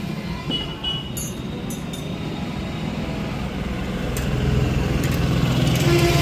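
Street traffic: the engine hum of passing road vehicles, with one vehicle growing louder toward the end.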